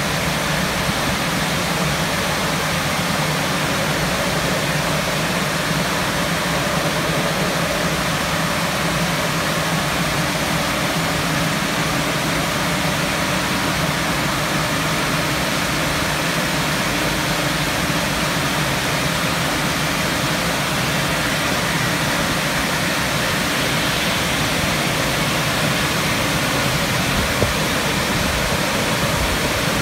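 Istobal M12 rollover car wash in its drying stage: the gantry's blowers send a steady rush of air over the car, over a low hum, while the gantry travels along it.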